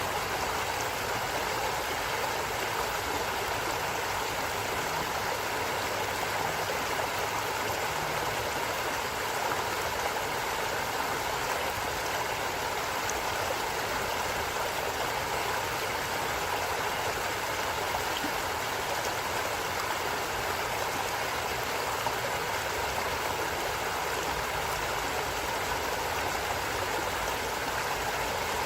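A stream of running water, flowing in a steady, even rush with no breaks or separate events.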